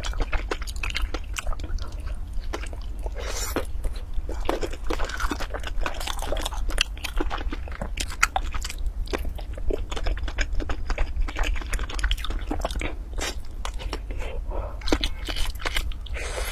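Close-miked mouth sounds of a person chewing spoonfuls of soft dessert: an irregular run of small smacking and crunching clicks over a steady low hum.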